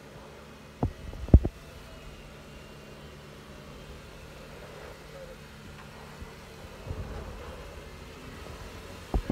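Jeep Wrangler engine running low and steady as it crawls up steep slickrock, with two sharp thumps about a second in and a few smaller knocks later.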